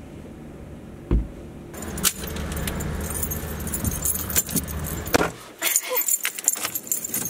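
Keys jangling with sharp clicks and knocks over low car noise. The low rumble drops away about three-quarters of the way through while the jingling goes on.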